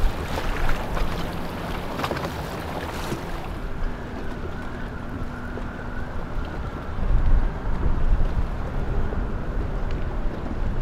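Wind buffeting the microphone over waterside ambience, with a stronger gust about seven seconds in.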